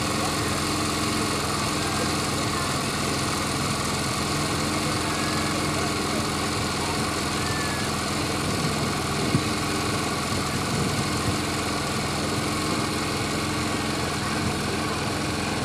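Steady engine-like hum with faint droning tones under a constant hiss, like a motor idling, unchanging throughout.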